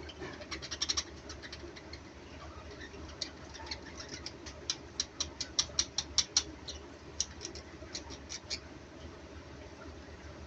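Pet lovebirds and budgerigars giving quick, short, high chirps and clicks, thickest in the middle of the stretch, over a steady low hum.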